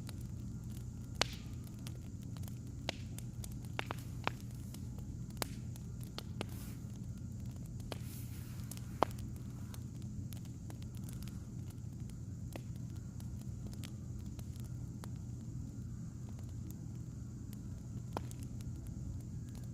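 Burning firewood crackling, with scattered sharp pops at irregular moments, most of them in the first half, over a steady low hum.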